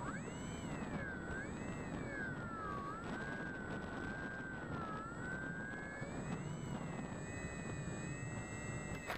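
Electric motor and propeller of a Bixler foam model plane whining as heard from its onboard camera, with wind rushing over the airframe. The whine rises in pitch just after the start, then wavers up and down with the throttle.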